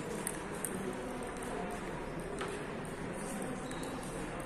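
Table tennis ball struck twice in quick succession near the start, then a single lighter tap about two and a half seconds in, over a steady murmur of voices and hall noise.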